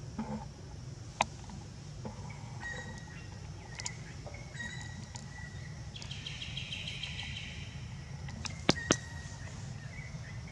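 Outdoor ambience: birds chirping, with thin held notes and a brief trill, over a steady low hum. Sharp clicks stand out about a second in and twice in quick succession near the end.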